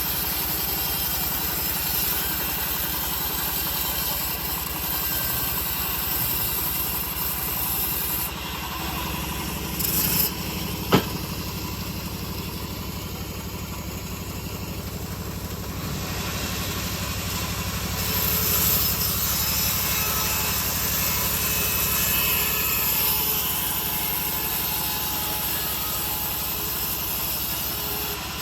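Homemade engine-driven bandsaw mill running steadily as its blade cuts through an old teak log. The high hiss of the cut thins out for about ten seconds in the middle, with a single sharp knock, then picks up again.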